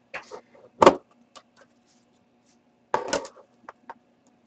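Metal Upper Deck trading-card tin being opened by hand: a sharp clack about a second in and a cluster of clinks and scrapes about three seconds in, as the tin lid comes off and is laid on the table.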